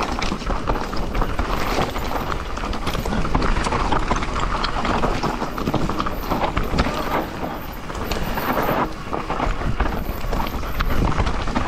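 Transition Spire 29er enduro mountain bike descending a loose, dry trail at speed: tyres crunching over dirt and stones, with a constant clatter of knocks and rattles from the bike. The clatter eases briefly about eight seconds in.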